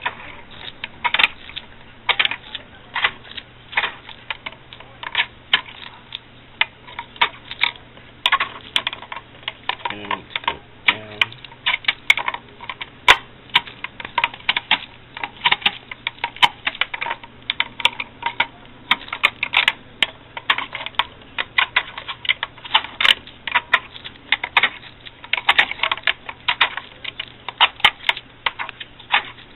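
Irregular plastic clicking, a few clicks a second, from the Sea-Monkey Million Bubble air pump as it is worked by hand to bubble air through the tank water and mix in the Plasma III.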